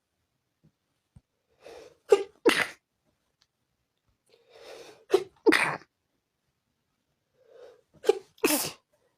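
Person sneezing over and over: three bouts about three seconds apart, each a short breath in followed by a quick double sneeze. This is a sneezing fit brought on by dust.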